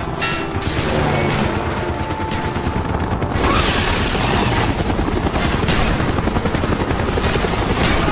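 Repeated shotgun-blast sound effects of a Winchester Model 1887 lever-action shotgun, layered over a continuous rumble and some music. The blasts grow denser from about three and a half seconds in.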